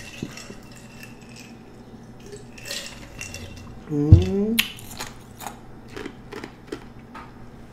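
Eating sounds: scattered small clicks and smacks while chewing, with a short low vocal sound about four seconds in, the loudest moment, followed by a quick run of sharp clicks.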